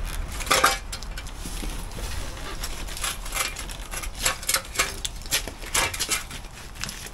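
A window frame being worked out of a brick opening by hand: a knock about half a second in, then scattered sharp clicks and clinks as the frame and loose bits of brick knock against the brickwork.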